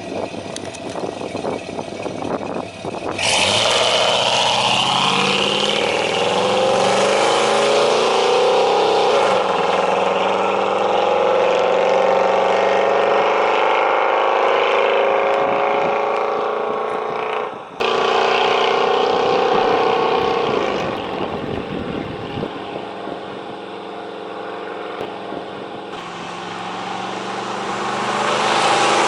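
1994 GMC Sierra pickup's engine through a straight-pipe exhaust, loud and throaty. It jumps up about three seconds in and runs hard with a slowly climbing note, breaks off for a moment past halfway, drops to a lower, quieter running note, then rises again near the end. The uploader's title speaks of a misfire.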